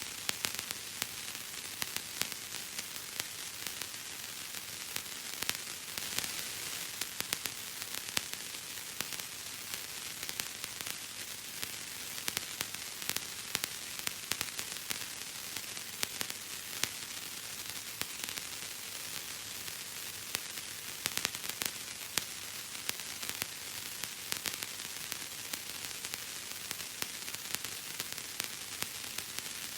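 Bubble wrap being popped: a dense, irregular run of small sharp pops and crackles, several a second, over a steady hiss.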